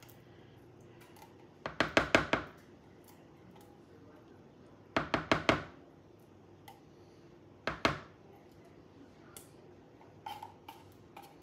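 A utensil knocking and scraping against the inside of a metal can while emptying out sweetened condensed milk. The knocks come in quick runs of four or five, about two seconds in and again about five seconds in, then a shorter pair near eight seconds and a few faint taps near the end.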